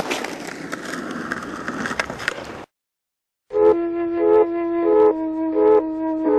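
Skateboard wheels rolling over paving with a few clicks, cutting off suddenly about two and a half seconds in. After a short gap, music starts: a woodwind melody of short, repeated held notes.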